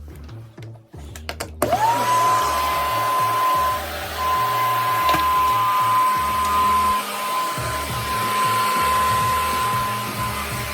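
A carpet-cleaning extraction vacuum switches on suddenly about two seconds in. It gives a loud rush of air and a whine that climbs quickly to one steady high tone, heard over a background bass beat.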